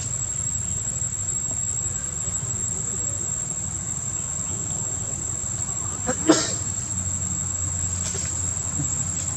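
Steady high-pitched insect drone over a low rumble, with one short sharp squeak about six seconds in.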